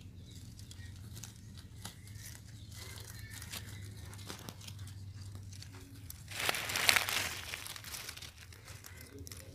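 Dry fallen mango leaves and twigs crackling and rustling under newborn puppies crawling through their nest, with many small crackles and one louder crunch lasting about a second, about six and a half seconds in.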